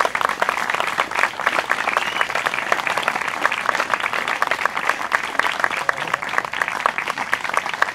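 Audience applauding: many hands clapping in a dense, steady crackle.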